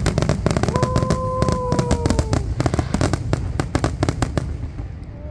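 Fireworks going off in a rapid barrage of bangs and crackling that thins out and fades near the end.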